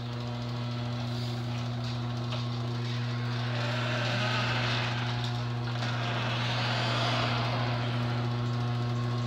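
LiftMaster chain-drive garage door opener running as it raises the door: a steady motor hum with the noise of the chain and the moving door over it.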